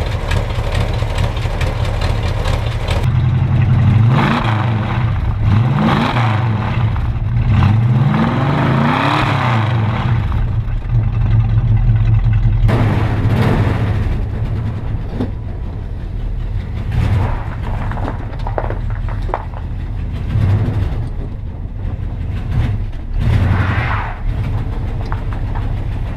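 1974 Dodge Challenger's 318 V8 running, revved up and back down several times about four to ten seconds in, then settling to a steadier idle with a few light blips of throttle. The owner says the engine needs a good tune-up.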